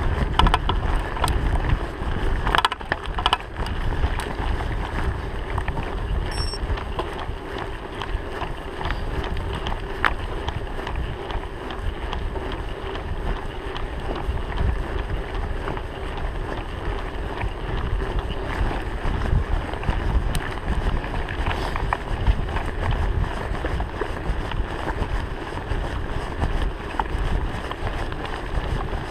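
Wind buffeting the camera microphone on a Trek 4500 mountain bike speeding downhill, over the steady rolling of its tyres on a dirt and gravel road. Short rattles and knocks from the bike over bumps, a cluster of them about three seconds in.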